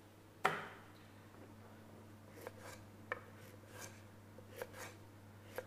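Kitchen knife cutting through a raw carrot onto a wooden chopping board: one sharp chop about half a second in, then a run of lighter, irregular cuts as the carrot is sliced into rounds.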